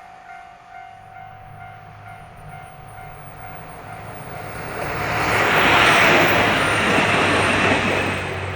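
Japanese level-crossing warning bell ringing in an even repeating beat, then a train passing over the crossing, its noise building to a peak about six seconds in and easing off near the end.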